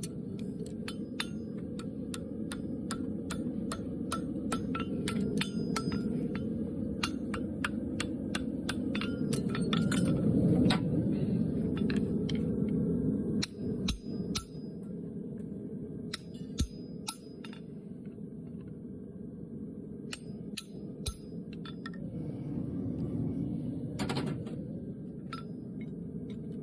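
Farrier's hammer striking metal on an anvil in runs of quick ringing blows, with pauses between them, while forging a horseshoe. A steady low roar runs underneath.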